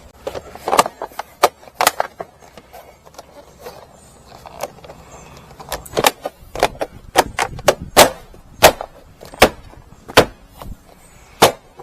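Sharp knocks and taps of hand work while mounting a doorbell camera: a few scattered ones, then from about halfway through a steadier run of about one or two a second.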